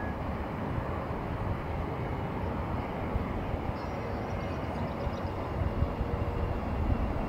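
Steady low rumble of jet aircraft engines heard across the airfield, with a faint steady engine tone growing in the second half.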